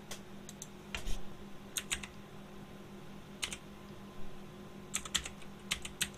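Computer keyboard keys typing in short, irregular clusters of clicks, entering an IP address, over a faint steady hum.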